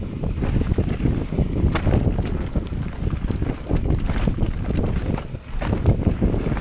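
Wind buffeting the microphone with a steady low rumble and scattered knocks and rattles.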